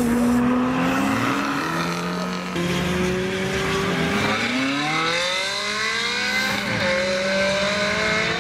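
Mid-engined Ferrari V8 accelerating away, its engine note climbing through the revs, dropping at an upshift and climbing again.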